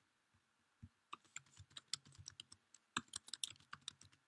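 Faint typing on a computer keyboard: a quick, irregular run of key clicks that starts about a second in and goes on nearly to the end.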